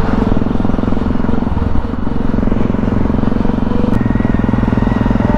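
Motorcycle engine heard from the rider's own bike, running under way with wind noise, its note dipping briefly about two seconds in. After an abrupt change about four seconds in, it runs at a steadier idle.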